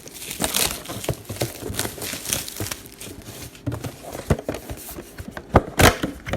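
Plastic wrapping and card-pack wrappers of a trading-card mega box crinkling and tearing as it is opened, with a few sharp taps near the end.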